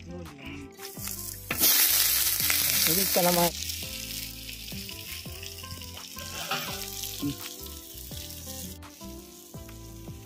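Fish frying in hot oil on a tawa: a sudden loud burst of sizzling about one and a half seconds in that lasts about two seconds and cuts off sharply, then a steadier, softer sizzle that fades near the end.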